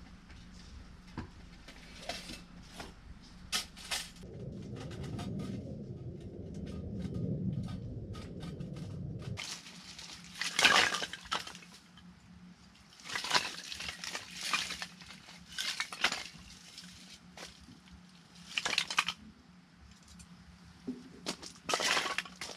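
Objects being handled: scattered clicks and knocks, a low rumble for a few seconds, then several short rustling or scraping bursts.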